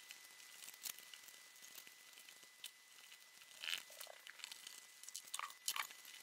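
Faint, scattered scratchy squeaks and rustles of EPP foam under the hands as carbon spars are pressed into slots cut in a foam flying wing, a handful of short sharp scrapes a second or so apart.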